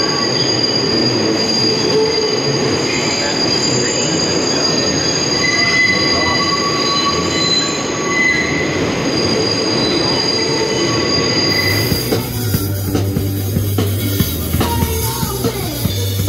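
New York subway train running through the City Hall loop, its wheels squealing in steady high tones over the rumble of the car on the tight curve. About twelve seconds in it cuts abruptly to music with a steady bass beat.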